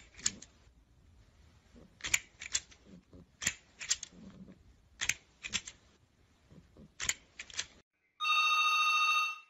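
A plastic crocodile grabber toy snapping its jaws shut, making sharp clacks in groups of two or three every second or so. About eight seconds in, a desk telephone gives one steady electronic ring lasting just over a second.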